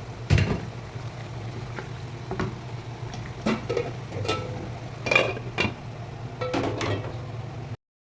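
Metal utensil clinking and scraping against a cooking pot, a handful of separate knocks spread over several seconds, over a steady low hum. The sound cuts out abruptly near the end.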